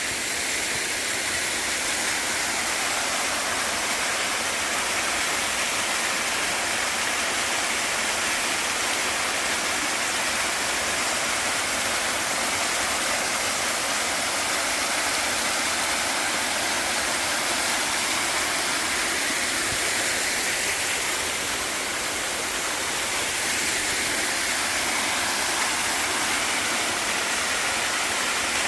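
Waterfall on a mountain stream, its water pouring and splashing in a steady, even rush that holds at one level throughout.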